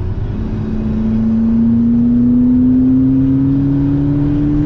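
McLaren MP4-12C's twin-turbo V8 under hard acceleration, heard from inside the cabin, its note rising steadily in pitch as it pulls through a single gear.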